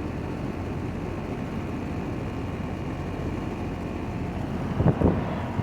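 Outdoor air-conditioner condenser units running: a steady hum and rush of air with a few faint steady tones. A short louder knock-like burst about five seconds in.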